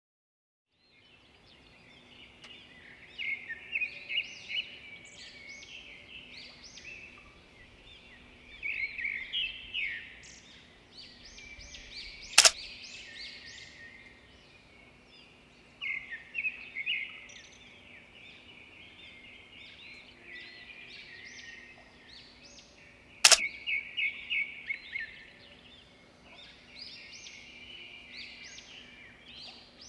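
Small songbirds chirping and twittering in repeated bursts of quick, high notes, over a faint steady hum. A sharp click cuts through twice, well apart.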